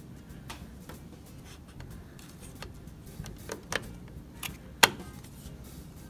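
Scattered clicks and light knocks of plastic and metal parts being handled and seated while the power supply unit is fitted into a Behringer Xenyx UFX1604 mixer's chassis. The sharpest, loudest click comes just before five seconds in.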